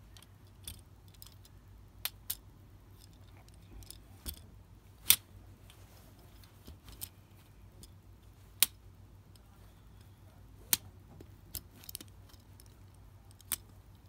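Blue magnetic fidget rings (magni rings) clicking together as they are handled: about a dozen sharp clicks at irregular intervals, the loudest about five seconds in.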